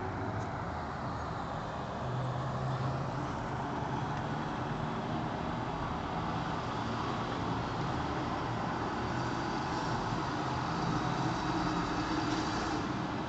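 Steady road traffic at a city intersection: car engines and tyre noise, with a low engine hum coming up about two seconds in.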